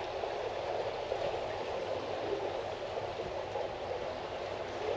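Steady rushing of flowing water, an even hiss with no separate splashes.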